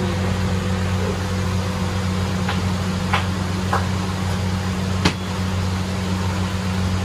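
Steady low mechanical hum, with a few light clicks around the middle.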